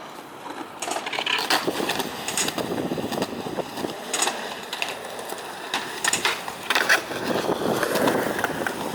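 Skateboard rolling on pavement, its wheels rumbling steadily, with several sharp clacks of the board along the way.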